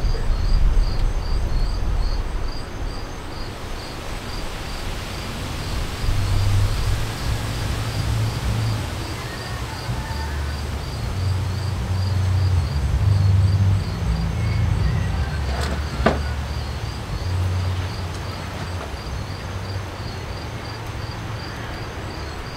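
Gusty wind rumbling on the microphone, swelling and easing, with night insects chirping in a steady high pulse, about three chirps a second. A single sharp tap comes about two-thirds of the way through.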